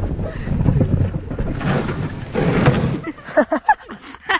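Bathtub sledge sliding over snow: a loud, even rumble mixed with wind on the microphone. It dies away about three seconds in, and short shouts follow near the end.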